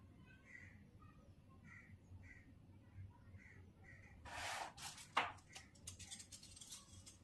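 Handling noise from a plastic reel of LED strip and its packaging being picked up. There is a brief rustle about four seconds in, a sharp click just after, then a run of small clicks and ticks as the reel is handled.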